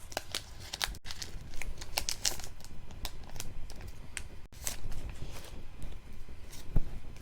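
Foil Pokémon booster pack wrapper crinkling and crackling as it is handled and opened, in irregular bursts of sharp crackles.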